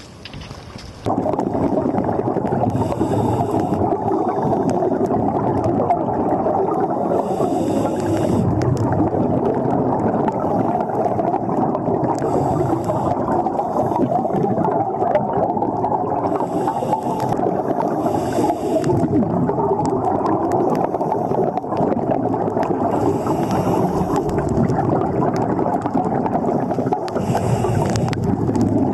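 Underwater noise, heard through the camera's housing: a steady low rush of water and bubbles with a short hiss of scuba breathing every few seconds. The rush starts abruptly about a second in.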